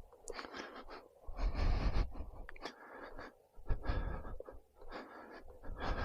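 A person breathing close to the microphone while walking: a series of separate breaths, with low rumbling swells under some of them.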